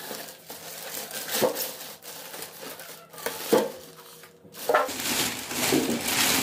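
Polystyrene foam packing blocks being pulled off a boxed oven, with scraping and a few sharp knocks, then a plastic bag crinkling and rustling from about five seconds in as it is handled.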